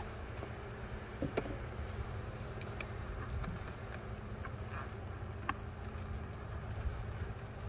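Italian honeybees buzzing steadily as an open nuc colony is worked, with a few short sharp clicks and knocks, the loudest about a second in.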